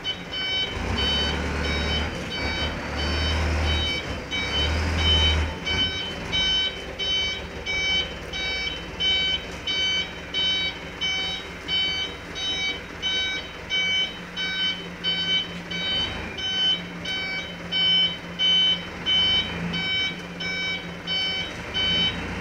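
Reversing alarm of a Mitsubishi Canter dump truck beeping steadily, about two beeps a second, while the truck backs up, with its engine running low underneath. Low rumbling for the first five seconds.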